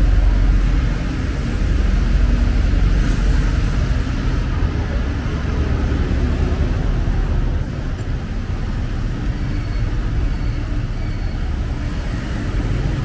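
Busy city street traffic: motor scooters and cars passing close by, with a steady low engine rumble and tyre noise. A double-decker bus runs alongside near the start.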